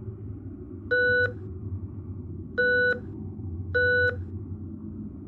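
Three short electronic beeps, each about a third of a second, over a steady low rumble: an edited computer-terminal sound effect marking each new line of text on a mock drone-camera display.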